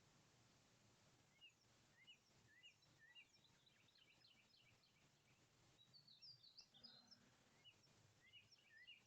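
Faint songbird chirping: a string of short chirps from about a second and a half in, a busier, higher flurry around six to seven seconds, and more chirps near the end.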